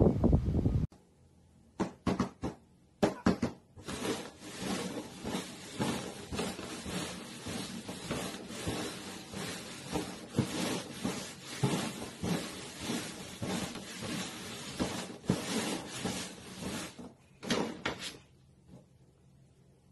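Wind buffeting the microphone for about the first second, then red paper cups being slid and tapped by hand on a cardboard box in a shell game: a few scattered knocks, then a long run of quick, dense tapping and scraping that stops near the end, followed by a last couple of knocks.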